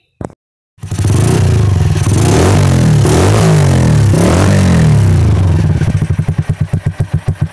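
A motorcycle engine runs through an aftermarket BRC muffler with a stainless-steel outlet. It is revved up and down several times, then drops back near the end to an idle of distinct, evenly spaced exhaust pulses.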